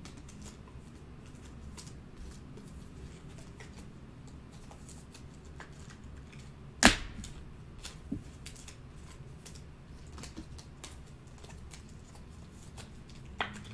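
Sports trading cards being handled on a table: scattered faint clicks and rustles, with one sharp snap about seven seconds in and a smaller tap about a second later.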